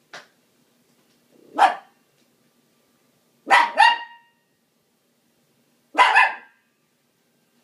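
Pet dog barking at a dishwasher: a single bark, then a quick pair of barks, then another pair, spaced about two seconds apart, with a faint short sound at the very start.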